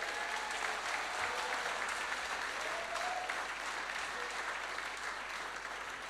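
Congregation applauding, easing off slightly toward the end.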